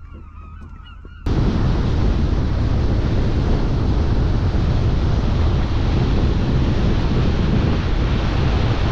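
Geese honking briefly, then a sudden cut to the loud, steady rush of a small motorboat underway: wind on the microphone and water rushing past the hull.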